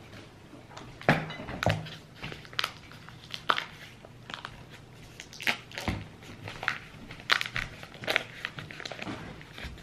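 Paper wrapper being peeled off a stick of butter by gloved hands: irregular crinkling and crackling.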